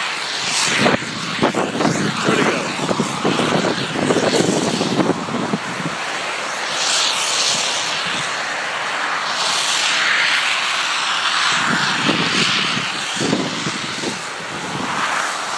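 Wind rushing and buffeting over the microphone while skiing downhill, with skis scraping and hissing over snow in irregular strokes.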